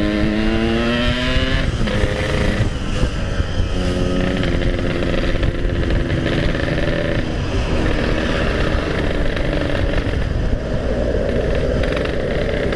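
Yamaha RX-King two-stroke single-cylinder motorcycle engine under throttle while riding. Its pitch rises in several pulls with short breaks between them as it shifts up through the gears, then runs steadier near the end, over wind rumble on the microphone.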